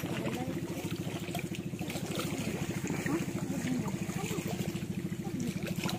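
Pump boat engine running steadily with a rapid, even put-put of roughly a dozen beats a second.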